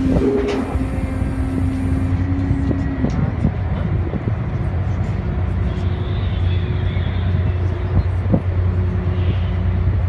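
Car ferry's engines droning steadily, a low hum heard from the open upper deck.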